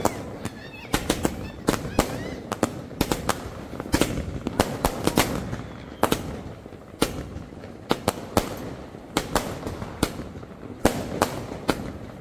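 Firecrackers going off in an irregular string of many sharp bangs and cracks, sometimes several within a second.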